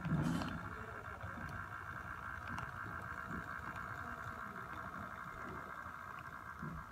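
HO scale model diesel locomotive running past with its train: a steady whine from the electric motor and gearing over a low rumble of wheels on the track, with a few faint clicks. A short bump at the very start is the loudest moment.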